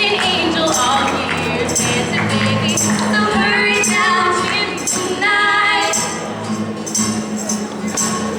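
Music with singing and a tambourine jingling in a regular beat.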